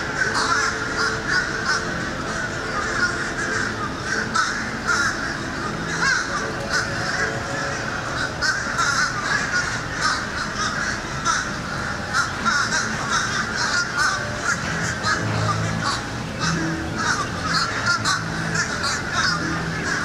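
A flock of birds calling and chattering continuously, with many overlapping harsh, crow-like calls.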